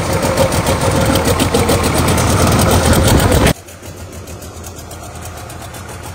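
Isuzu 6HK1 six-cylinder diesel engine running steadily on a test stand just after start-up, with a faint steady whine. About three and a half seconds in, the sound drops sharply to a much quieter steady engine hum.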